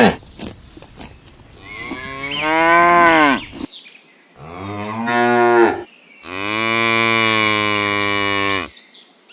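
Cow mooing: three long moos with gaps between them, the last the longest at about two and a half seconds.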